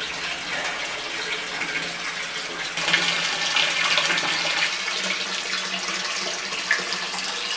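Water pouring steadily from a hose into a flooded sump and splashing, growing louder for a couple of seconds in the middle, with a faint low hum underneath.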